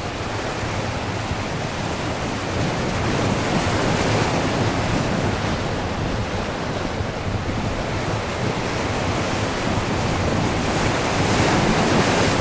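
Twin-engine jet airliner on final approach and touchdown: a steady rushing jet-engine noise that grows louder toward the end as the aircraft comes close.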